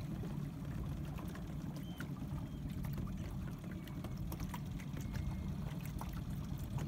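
Boat's engine running slowly as a steady low rumble, with water splashing and trickling against the hull.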